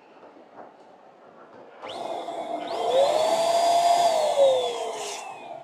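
Electric balloon inflator running for about three seconds, starting about two seconds in. Its motor whine rises in pitch, then falls and fades as the motor winds down near the end.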